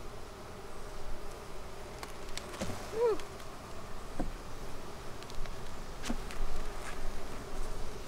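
Honeybees buzzing steadily over an open hive box, the hum of a busy, populous colony. There are a few light knocks as wooden hive frames are handled.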